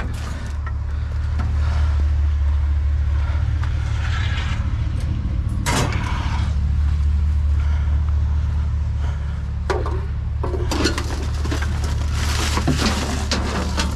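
Vehicle engine running steadily at idle, a constant low hum, with a few scattered knocks and scrapes of items being handled.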